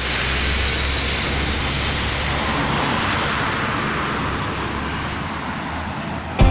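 Steady road traffic noise, the hiss and hum of passing cars, easing off slightly toward the end.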